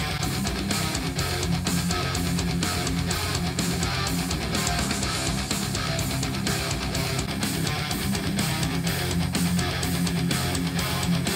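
Heavy metal track with strummed electric guitars and a driving beat, played through small desktop speakers and picked up by a microphone. Partway through, the playback switches from JBL 104 monitors to Edifier R1280DB bookshelf speakers, then back to the JBL 104s.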